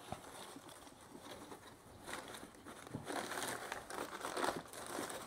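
Faint, irregular rustling of tissue paper and a cloth boot bag as a boot is drawn out of its shoebox, busier in the second half.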